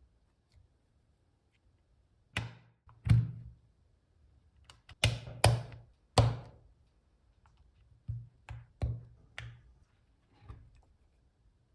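Weikav Lucky65 V2 mechanical keyboard with lubed Gateron Smoothie switches, an FR4 plate and PBT keycaps, struck one key at a time: about ten separate deep keystroke thuds, irregularly spaced, the loudest in the middle.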